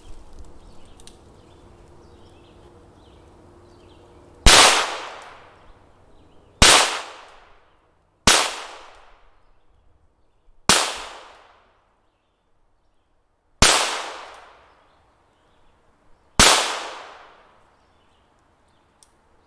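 .22 calibre firearm firing six single shots at uneven intervals, each a sharp crack with a brief echoing tail.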